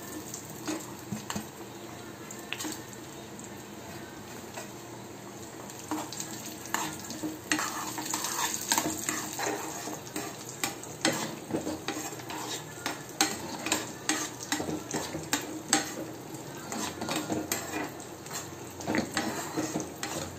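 Cashews and pistachios sizzling in ghee as a steel spoon stirs them in a pan. Then a ladle stirring the thick payasam in a pressure cooker pot, with frequent sharp clinks and scrapes of metal against the pot from about six seconds in.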